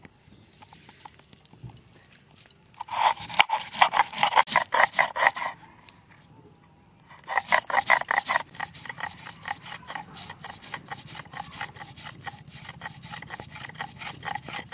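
Stone muller scraped back and forth on a flat grinding stone (shil-nora), grinding white and black mustard seeds and poppy seeds into paste: quick, even scraping strokes that start about three seconds in, pause briefly around six seconds, then resume and settle into a steady rhythm.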